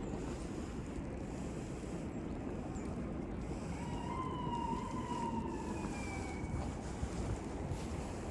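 Steady wind buffeting the microphone in a snowstorm, with an emergency-vehicle siren wailing once in the middle, its pitch falling slowly over about three seconds.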